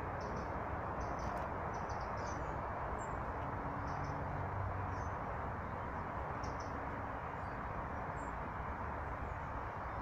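Small songbirds at a feeder giving short, high chirps and calls every second or so, over a steady low rushing background noise.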